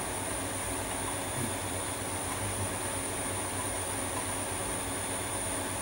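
Steady room noise: an even mechanical hum and hiss with a faint high-pitched whine.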